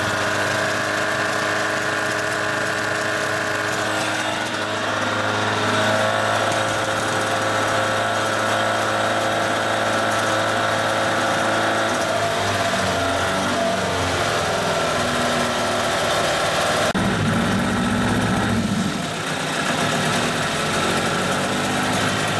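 1980 Johnson 15 hp two-stroke outboard running, holding a steady speed at first, then wavering up and down in speed from about halfway through as its controls are worked.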